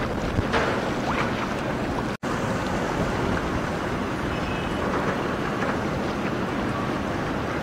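Wind buffeting the microphone over a steady rush of river water. The sound cuts out for an instant about two seconds in.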